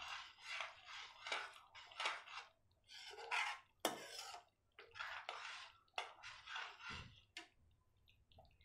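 A metal spoon scraping and stirring thick tomato gravy in a metal kadhai, a scrape about every half second, stopping shortly before the end.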